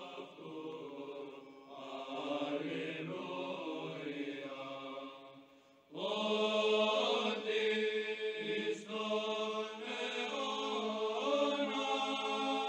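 Background music of slow choral chanting in long held notes. It dips briefly about six seconds in, then comes back louder.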